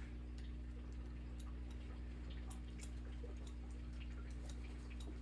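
Barber's scissors snipping hair: short, light clicks, irregular, a few a second, over a steady low hum.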